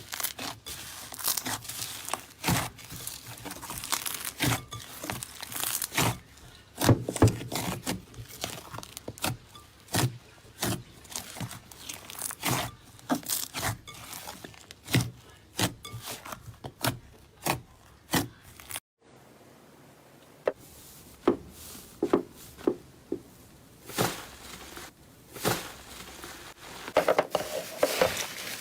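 Slime being squeezed and stretched by hand, making irregular sharp pops and clicks, several a second, with a brief break about two-thirds of the way through.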